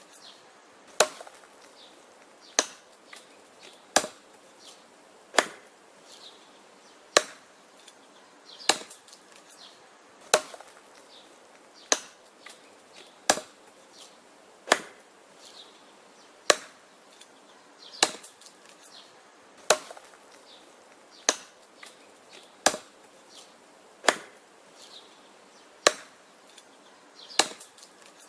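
Axe chopping wood in a steady rhythm, a sharp crack about every second and a half. Each blow is followed by a few smaller knocks.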